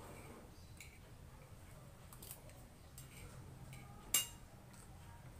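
Metal spoon clinking and scraping against a plate while eating: a few light clicks, then one sharper clink about four seconds in.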